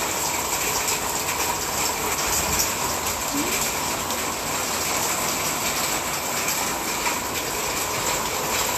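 Heavy rain pouring steadily, a dense, even hiss of falling water.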